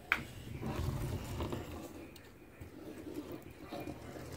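A child's voice making a low, rumbling jet-engine noise for a toy airliner, with a sharp knock just as it begins.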